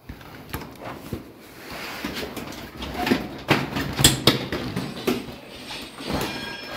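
Plastic strip curtain rustling and slapping as someone pushes through it, with a run of irregular knocks and clatters.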